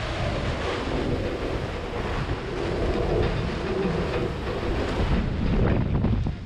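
Microburst wind blasting across a sailboat's cockpit and buffeting the microphone, a loud steady rush with waves beneath it.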